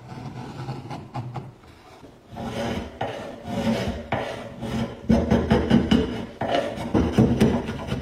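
Hand file rasping back and forth along the edge of a wooden board in repeated strokes. The strokes are light at first, then grow louder about two seconds in and heavier again about five seconds in.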